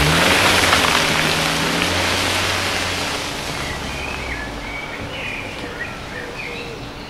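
Suzuki SX4 1.6 VVT four-cylinder petrol engine revving as the all-wheel-drive car pulls away through wet mud, its tyres churning and throwing mud with a steady hiss. The sound fades as the car drives off, and the engine note is gone after about two seconds.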